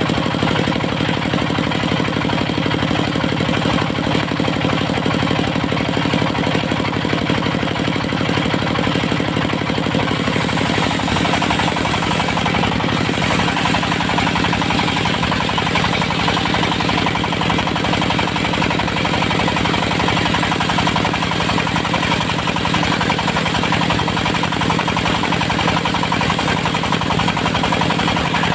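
Diesel engine driving a circular sawmill blade, running steadily with a fast, hard chugging; about ten seconds in the sound turns brighter and harsher as the blade saws through dry teak.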